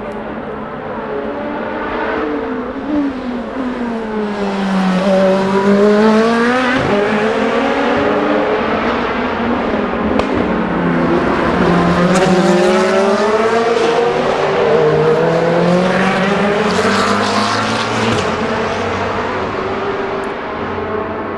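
Endurance race cars running on the circuit, their engine notes falling and then climbing again twice, as the cars come off the throttle and then accelerate away.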